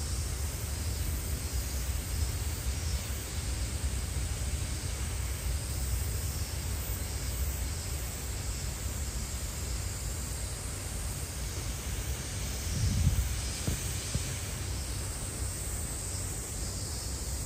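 Steady outdoor background noise: an even hiss over a low rumble, with one short low bump about thirteen seconds in.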